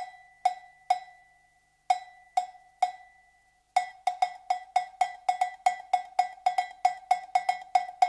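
A 5-inch heavy-duty cowbell on a stand mount struck with a wooden drumstick, each strike ringing briefly. It plays two groups of three even strokes with a pause between, then from about four seconds in a steady run of about five strikes a second.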